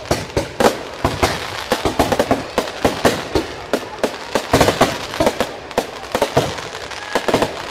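Aerial display fireworks going off in quick succession: many sharp bangs of shells launching and bursting, several a second at an irregular rhythm.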